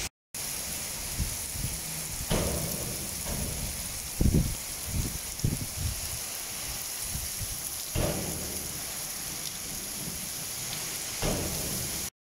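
Heavy rain pouring steadily with a constant hiss, with a few sharper hits scattered through and some low rumbling swells around the middle.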